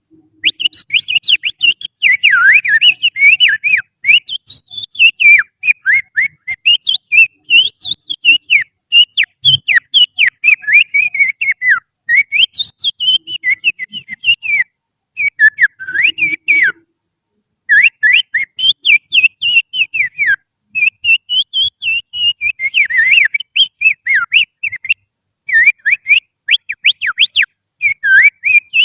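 Finger whistling that imitates the song of an oriental magpie-robin (kacer): fast, varied whistled phrases of rapid up-and-down glides, with short breaks between phrases. It is a lure, played to get caged magpie-robins to start singing.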